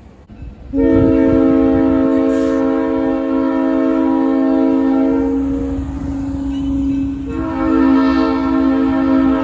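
Multi-chime locomotive air horn sounding a long, loud chord over the rumble of the train. Its upper notes drop out for a moment partway through while the lowest note holds, then the full chord comes back near the end.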